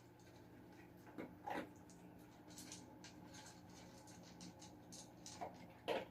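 Newborn American bulldog puppies whimpering faintly over soft shuffling, with two pairs of short squeaks, about a second in and near the end.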